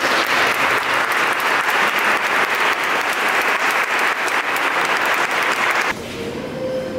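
A crowd applauding: dense, steady clapping that cuts off abruptly about six seconds in.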